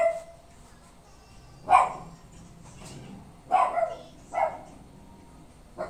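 A dog barking, about four short single barks a second or two apart.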